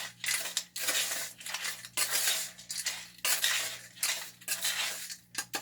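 A metal spoon scraping and stirring a stiff wet concrete mix of Portland cement, sand and gravel in a container, in repeated gritty strokes several times a second.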